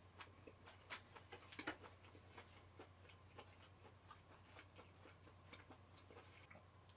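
Near silence with faint, irregular small clicks from chewing a mouthful of steak and from a beer can being lifted for a drink.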